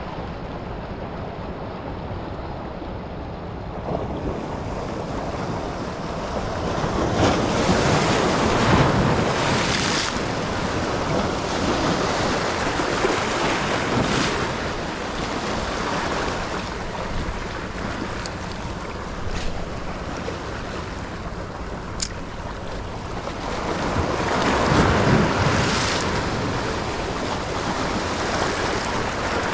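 Sea waves washing onto a beach, swelling up and washing in twice, with wind buffeting the microphone. A single sharp click sounds about three quarters of the way through.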